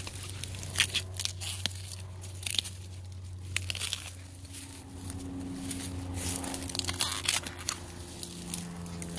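Dry bamboo leaves and stalks crackling and crunching in irregular sharp snaps as someone moves through dense leaf litter and weeds, over a steady low hum.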